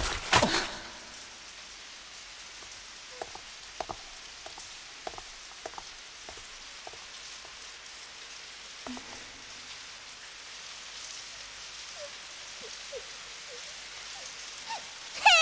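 Steady rain falling, an even hiss with scattered faint drips and patters.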